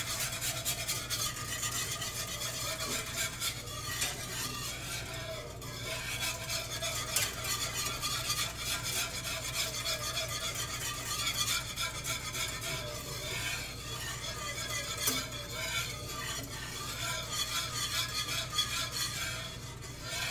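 Wire whisk stirring a thin roux-and-chicken-stock gravy in a skillet: a continuous rapid scraping and clicking of the wires against the pan as the sauce cooks and thickens.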